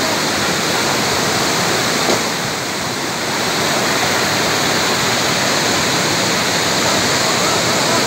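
Waterfall cascading down rock slabs: a steady rush of water.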